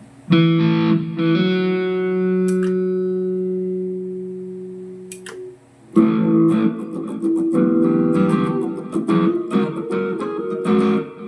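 Electric guitar played through a Mooer GE150 Pro Li multi-effects processor: one chord is strummed and left to ring, fading over about five seconds, then after a brief gap a run of strummed and picked chords follows.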